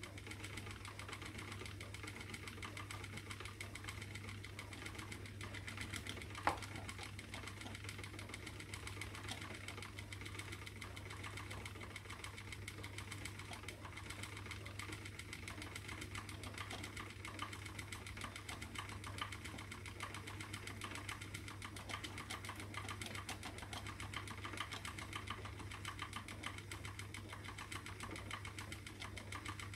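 Spinning wheel running steadily as silk and merino singles are plied together: an even mechanical whirr over a constant low hum. There is one sharp click about six seconds in.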